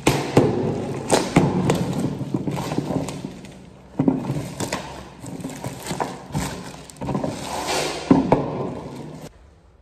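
Hollow plastic bins and a film-wrapped plastic bucket being handled and set down on a counter close by: repeated knocks and thuds of plastic against plastic and the counter, with the rustle of plastic wrap. It cuts off suddenly near the end.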